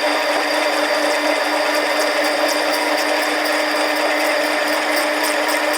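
Harbor Freight 7x10 mini lathe running steadily, its motor and gearing giving a constant hum and whine, while the tool takes a ten-thousandths-of-an-inch cut on an aluminum tube.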